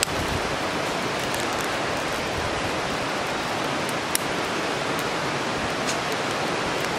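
Campfire of dry Japanese cedar fronds and dead leaves burning hard in a metal fire stand. The flames make a steady rushing hiss broken by a few sharp crackles, the loudest about four seconds in.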